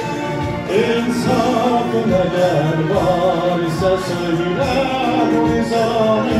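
A man singing an Azerbaijani romance over a musical backing, his voice holding long notes and sliding between them.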